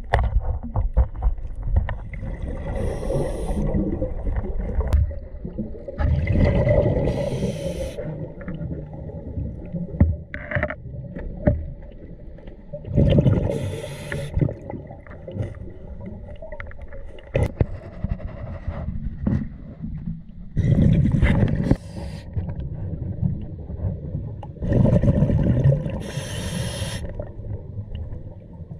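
A scuba diver breathing through an open-circuit regulator, heard underwater: about five bursts of rushing exhaust bubbles a few seconds apart over a low rumble, with scattered knocks and scrapes.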